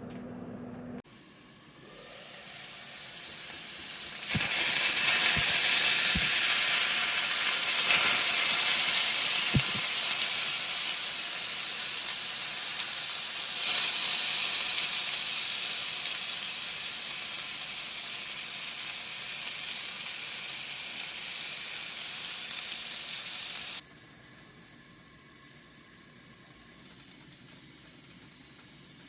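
Food sizzling in a hot frying pan: a loud hiss that sets in about four seconds in and slowly dies down, swells again about halfway through and then stops abruptly.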